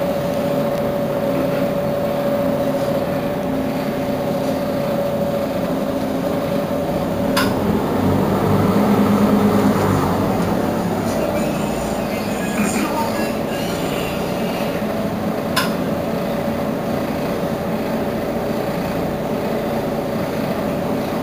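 Mercedes-Benz Citaro G C2 articulated bus idling at a standstill: a steady diesel idle hum with a constant whining tone, swelling a little about eight seconds in. Two short sharp clicks, about seven and fifteen seconds in.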